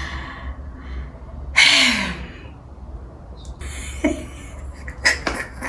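A woman's audible breaths between sentences: a sharp breathy exhale with a short falling hum about one and a half seconds in, a second breath near the middle and small mouth clicks near the end, over a steady low hum.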